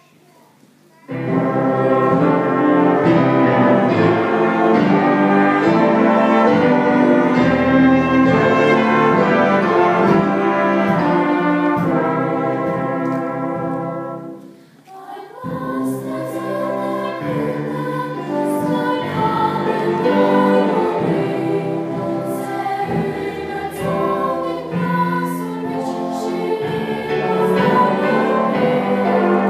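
Large church choir singing, starting suddenly about a second in; the singing drops away briefly about halfway through and then comes back in.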